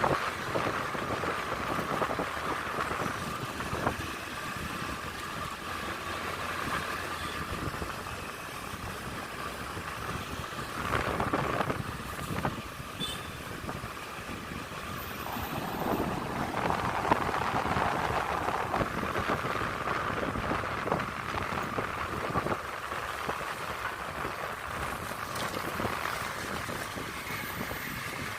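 Steady running noise of a moving vehicle's engine, with wind buffeting the microphone and a few louder swells.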